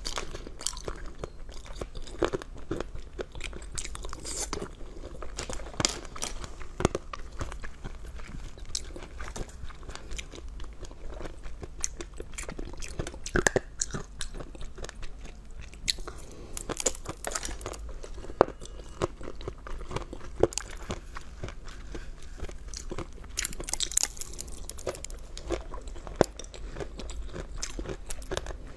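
Close-miked eating of jelly candies on sticks, some coated in sprinkles: repeated crunchy bites and chewing.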